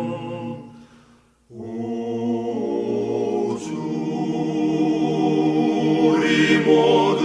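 Choir singing a slow Korean hymn in long held chords. The first chord dies away to a brief silence about a second and a half in, then the voices come in again on a sustained chord that swells louder toward the next sung word.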